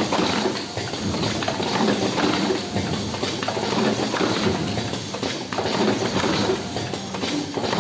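Vertical cartoning machine running: a dense, continuous clatter of fast clicks and knocks as its mechanism cycles.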